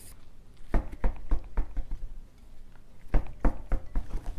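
Dull thumps from a dirt bike wheel and its freshly inflated knobby tire being handled on the floor, about three or four a second. One run of about six comes early, then after a pause a second run of about six. An air hiss cuts off right at the start.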